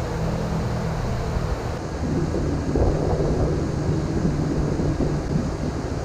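Steady low drone and hum of large barn ventilation fans, shifting slightly about two seconds in.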